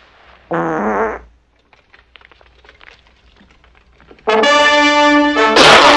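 A short, loud, buzzy blat about half a second in. From about four seconds in, a brass fanfare of trumpets and trombones sounds a loud sustained chord, with a crash near the end.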